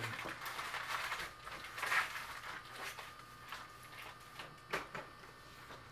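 A few light knocks and clicks of cups and dishes being handled on a kitchen table, over quiet room tone.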